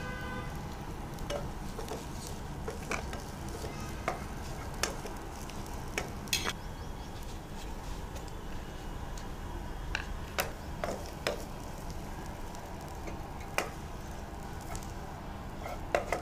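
Knife cutting through stacked rumali roti on a wooden chopping board: scattered sharp taps of the blade on the board over a steady low hiss. Near the end come a few clinks of a spatula against a pan.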